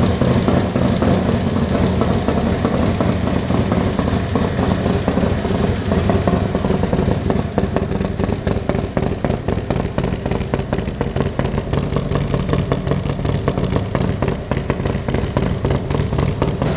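2021 Harley-Davidson Milwaukee-Eight 114 V-twin idling steadily through its exhaust on its first startup after a Stage 2 build with CNC-ported heads and a new intake.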